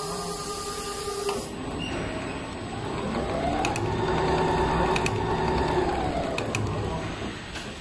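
Richpeace CNC tufting and bartacking machine running a stitch cycle on a thick cushion: its motor whine rises in pitch, holds, then falls away over about four seconds, with a few light clicks. A steady hum cuts off about a second in.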